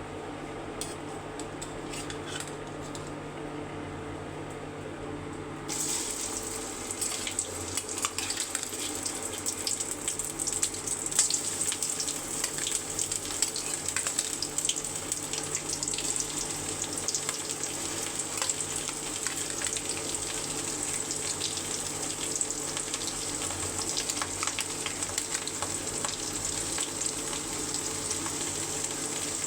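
Oil in a cooking pot starts sizzling about six seconds in, as food goes into it, and keeps frying with a steady crackle. Before that there is only a steady low hum.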